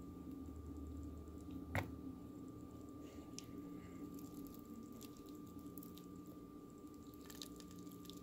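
Faint, scattered wet clicks and crackles from cooked potato pasta clumps, with one sharp click a little under two seconds in, over a steady low hum.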